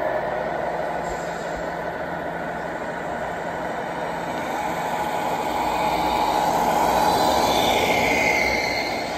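Radio-controlled scale model trucks driving on a carpeted floor, their motors and gearboxes whining steadily. The sound grows louder near the end as a truck pulling a flatbed trailer passes close by.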